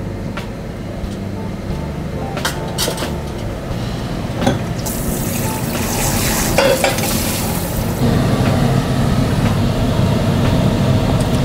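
Cooking at a stove: a metal utensil clinks against the pan a few times, then a loud sizzle about five seconds in that lasts about three seconds, followed by a steady low hum.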